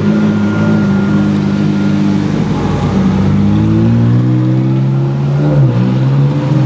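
Ferrari 458 Italia V8 engines revving as the car pulls away, the engine note climbing, dipping briefly near the end and then climbing again.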